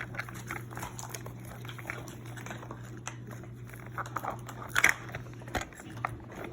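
Plastic packaging crinkling and small plastic pieces clicking as Mini Brands capsules and their tiny items are handled, in irregular small ticks and rustles with a louder rustle near the end. A steady low hum runs underneath.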